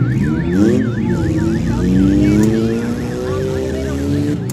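Demolition derby car engines revving and idling, their pitch rising and falling, under a fast warbling siren that sweeps up and down about three times a second.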